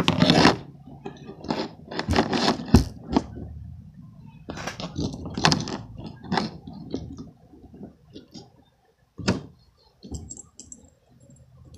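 Irregular clicks, knocks and scrapes of handling noise as the camera is put down and things are moved about. A sharp knock about three seconds in is the loudest.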